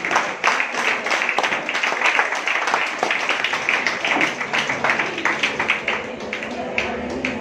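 Audience applauding, dense clapping with some voices mixed in, thinning out near the end.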